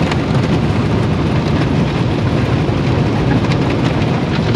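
Automatic car wash heard from inside the car: water spray and spinning cloth brushes beating over the windshield and body, a loud, steady, deep wash of noise.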